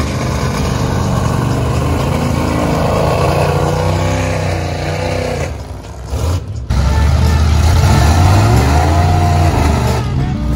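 Big off-road mud truck engine revving hard, its pitch rising and falling. It drops off briefly about six seconds in, then comes back louder.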